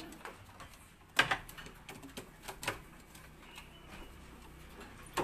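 Sharp clicks and rattles from a barred pigeon-loft cage front being handled, loudest a little over a second in, followed by a few lighter knocks.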